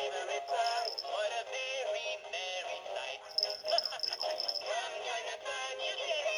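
Music with a singing voice, thin-sounding with no bass.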